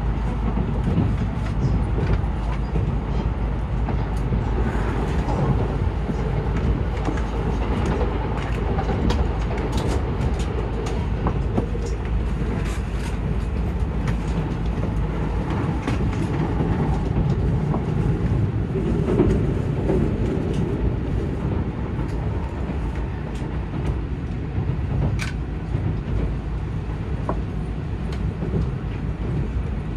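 Running noise inside an N700S Shinkansen passenger car: a steady low rumble of the train on the rails, with scattered faint clicks and knocks. The deepest part of the rumble eases about halfway through.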